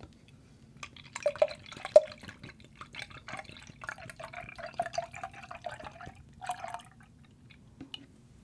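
Pineapple juice glugging out of a carton into a stemmed glass, with two loud glugs near the start and a gurgle whose pitch creeps up as the glass fills; the pour stops about seven seconds in.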